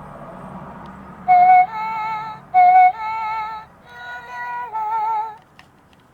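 A toy's electronic sound chip plays a short tune of wobbling electronic tones, about six notes, starting about a second in and stopping shortly before the end.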